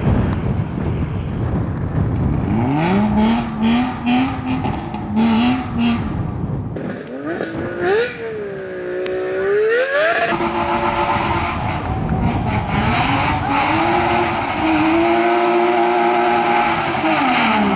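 BMW E36 3 Series rally car's engine revving up and down in short steps with wheelspin as the car is pushed free from the verge; about halfway through the revs dip and climb again, then the engine pulls away with its note rising and falling.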